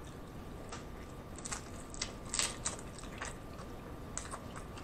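A person chewing a crunchy hard-shell taco close to the microphone: a string of short, sharp, irregular crunches as the fried shell breaks between the teeth.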